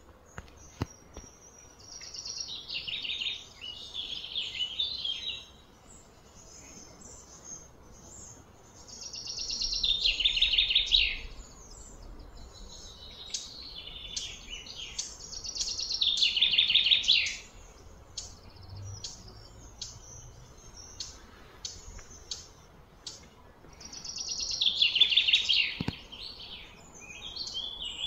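Birds singing in repeated high-pitched phrases of a few seconds each, four loud ones in all, each building to a rapid trill before it stops, with short chirps in between.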